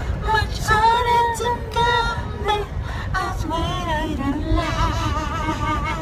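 Music: a song with a woman's singing voice holding and gliding between notes, over a steady low rumble.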